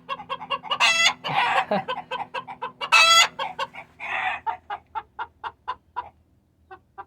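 Backyard chickens clucking, with two loud high calls about one and three seconds in. A quick run of short clucks follows and thins out near the end.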